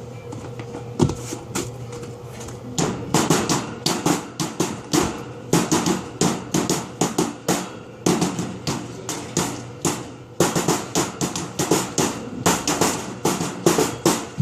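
Rapid, irregular knocking and banging, several hits a second, like someone drumming on objects, over a steady low hum. It is lighter for the first few seconds and stops briefly about ten seconds in.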